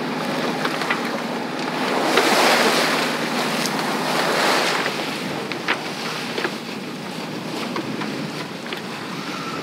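Wind and waves washing past a sailboat motoring into a headwind, with wind buffeting the microphone and a faint steady engine hum underneath. The rush of water swells about two seconds in and again around four to five seconds.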